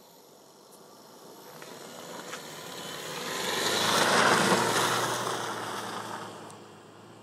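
A car driving past on a slushy, snow-covered road: the engine and tyre noise swells as it comes close, peaks about four seconds in as it passes, then fades as it drives away.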